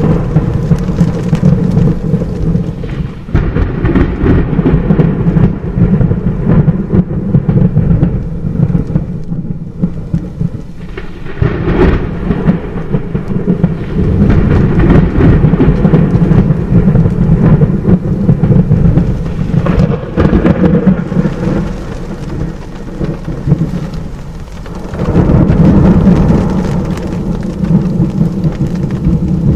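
Thunder rumbling almost without pause over falling rain, swelling and easing several times, with the loudest peal about 25 seconds in.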